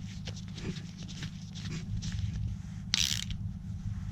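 Small clicks and scrapes of parts being handled, with one brief, sharp rustle about three seconds in, over a steady low hum.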